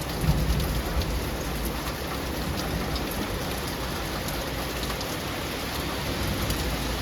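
Steady rain falling, with many individual drops pattering on hard surfaces close by and a low rumble underneath.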